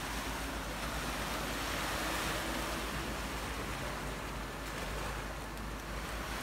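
Sea waves surging and washing into a narrow rocky gully, a steady rushing noise that swells slightly about two seconds in.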